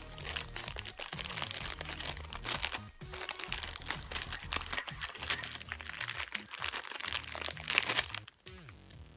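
Clear plastic zip-lock bags crinkling and rustling as they are handled and opened, with background music underneath; the crinkling stops near the end.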